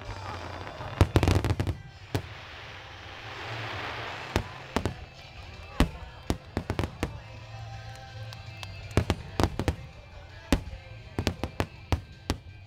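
Star mine fireworks: aerial shells bursting in rapid, irregular succession, dozens of sharp bangs, with a long crackling hiss of crackling stars about two to four seconds in.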